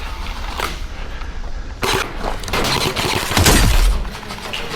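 Toy QCQ171 submachine gun firing a rapid burst of about two seconds, starting a little under two seconds in and loudest near the end of the burst.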